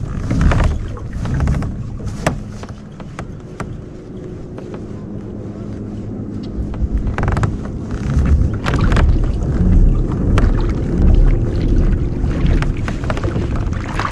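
Wind rumbling on the microphone aboard a fishing kayak, with scattered short knocks and clicks of gear handled against the hull.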